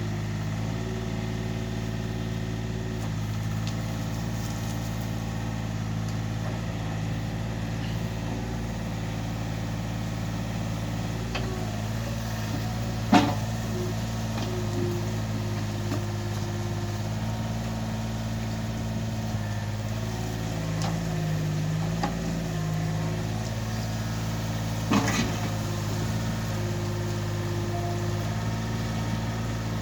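Yanmar B27 mini excavator's diesel engine running steadily under a digging test, with two sharp knocks, the first one about halfway through being the loudest.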